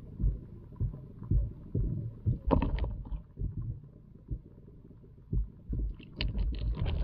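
Muffled, irregular low thumps heard underwater through a submerged camera in a pond, with two short bursts of crackling clatter, one about two and a half seconds in and another from about six seconds in.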